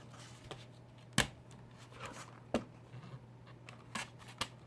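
Blu-ray disc packaging being handled: a few sharp clicks, the loudest about a second in and again near the middle, with light rustling between them.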